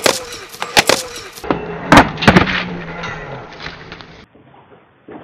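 Inline skates and a skater's body knocking and clacking against a metal stair handrail and concrete steps. There is a quick run of sharp knocks in the first two and a half seconds, then only faint outdoor background noise.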